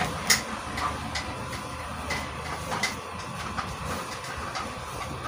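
Fabric rustling as hands handle and shift a dress and its sleeve, in soft irregular rustles over a steady background hum.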